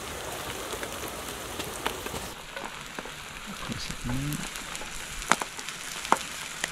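An egg-and-oyster omelette sizzling in a frying pan on a portable gas stove, a steady frying hiss with scattered crackles and a couple of sharper pops near the end.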